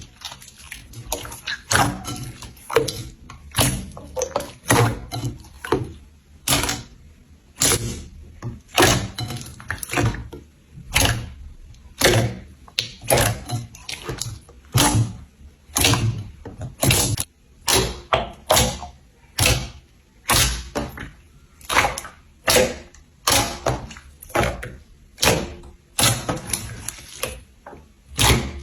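Slime being squeezed and pressed by hand, making a steady run of sharp pops and clicks about once a second.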